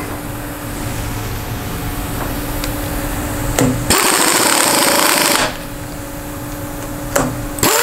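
Pneumatic impact wrench hammering a clamp nut down on its stud for about a second and a half, about halfway in, with a second run starting near the end. A short click comes just before each run, over a steady shop hum.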